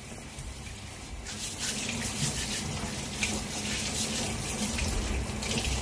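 Kitchen tap running into a stainless steel sink while a grilled pork hock is scrubbed with steel wool under the stream, the water splashing off hands and meat. The splashing grows louder and brighter about a second in.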